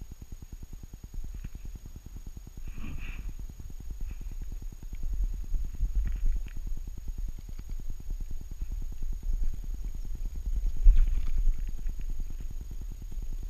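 Rapid, regular low thumping and rumbling from a Saarloos wolfdog's body as she walks, picked up by a camera strapped to her back. There are brief rustles about three seconds in and again near eleven seconds.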